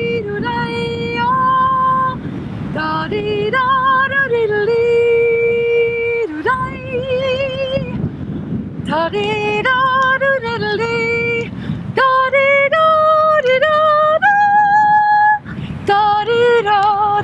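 A woman singing unaccompanied: high, long-held notes with vibrato, stepping and sliding from one pitch to the next, in a calling, yodel-like style.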